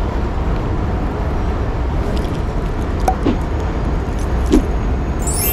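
Steady low rumble of city street traffic, with short squeaks about three and four and a half seconds in. A bright rising chime begins right at the end.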